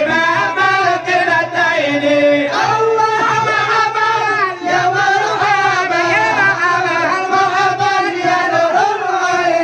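Men singing an Acehnese syair together into microphones, amplified through a PA. Several voices hold long, wavering notes with no pause.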